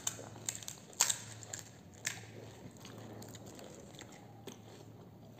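Crisp golgappa (pani puri) shells being cracked open with fingertips and crunched while eating: a few sharp cracks in the first two seconds, then fainter ticks.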